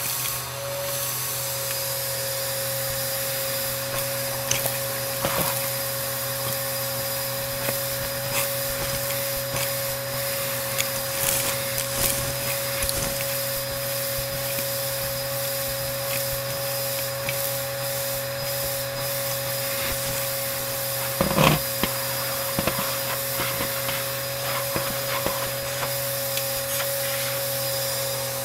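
Bissell AeroSwift vacuum cleaner running steadily with a constant motor whine, scattered crackles and ticks of crunchy debris being sucked up, and a louder clatter about three-quarters of the way through.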